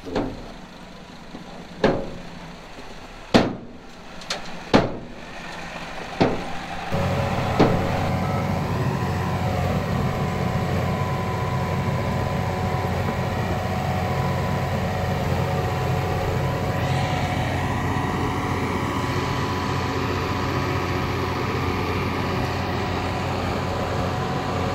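A heavy diesel machine engine starts running steadily about seven seconds in, after a series of six sharp knocks spaced about a second and a half apart.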